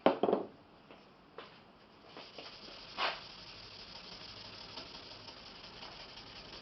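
Workshop tool handling: a sharp knock and clatter as something hard is set down, a couple of lighter clicks, then a steady faint rasping.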